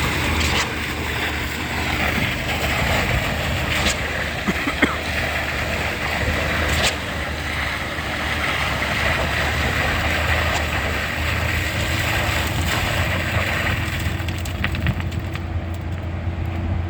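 Concrete pump's engine running steadily, a continuous drone with a few sharp knocks over it.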